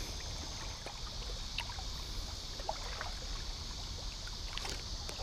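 Quiet lakeside ambience at dusk: a steady high-pitched insect drone over a low steady rumble, with a few faint clicks.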